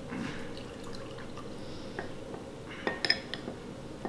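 Lemon juice poured from a small metal bowl into thinned tahini sauce while a spoon stirs it, with a few light clinks of the spoon or metal bowl, the sharpest near the end.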